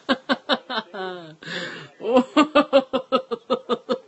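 A man laughing uncontrollably in rapid, rhythmic ha-ha-ha pulses. About a second in comes a drawn-out high squeal and a gasping breath, then a steady run of about six laughs a second.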